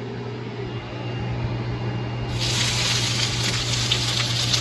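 Diced onion, celery and potato hitting hot oil in a skillet, starting a loud, steady sizzle about halfway through. Before that there is only a soft hiss over a steady low hum.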